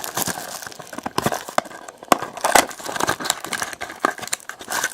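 Trading card pack wrappers being torn open and crinkled by hand, with cards being handled: a run of irregular crackling clicks.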